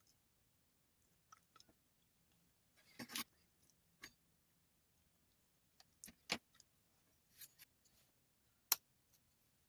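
Handling noises, quiet overall: scattered light clicks and taps, a brief rustle about three seconds in, and the sharpest clicks a little after six seconds and near the end.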